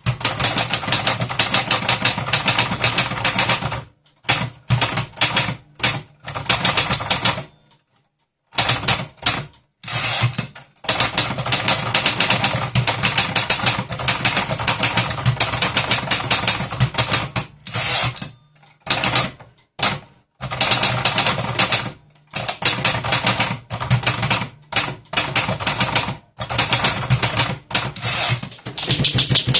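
Typewriter typing: fast runs of sharp key strikes, many a second, broken by brief pauses between lines or phrases.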